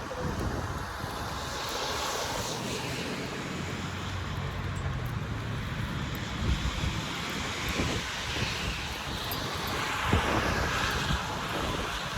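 Wind buffeting the microphone in a snowstorm, a steady rushing noise, with a low hum for a few seconds in the middle.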